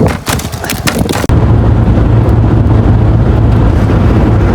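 A second of knocks and handling clicks, then a loud, steady rumble of road and wind noise from the van on the move, which starts abruptly.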